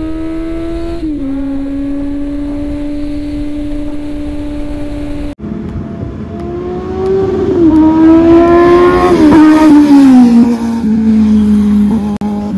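Kawasaki Z900 inline-four motorcycle engine under way: steady cruising revs, then after a brief break the revs climb hard, dip at a gear change, climb again, and fall away as the throttle is closed.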